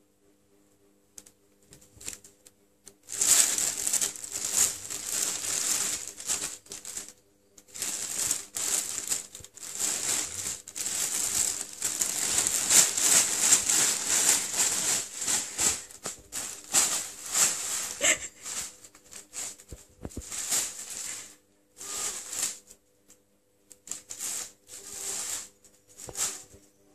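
Thin plastic bag rustling and crinkling in bursts as two cats scramble and tussle in and around it, starting about three seconds in and going on and off with short pauses.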